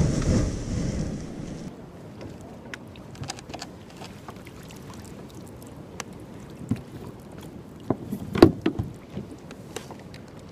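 Wind and water noise on the camera for the first second or two, then a quieter stretch of scattered light clicks and knocks from handling a freshly landed rock cod and the fishing tackle on a kayak. One sharper knock comes about eight seconds in.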